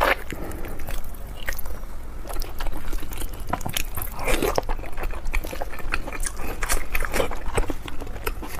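Close-up wet biting and chewing on braised pig stomach, the tough, sticky skin bitten and torn with the teeth. There are many short sticky clicks and mouth smacks, and a louder wet burst a little after halfway.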